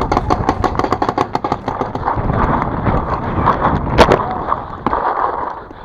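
Paintball markers firing, a rapid run of shots in the first couple of seconds and a single sharp shot about four seconds in, over steady sandstorm wind rushing on the microphone.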